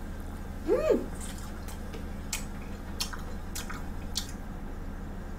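A woman eating pizza close to the microphone: a short rising-and-falling hummed "mm" about a second in, then chewing with a few sharp, wet mouth clicks.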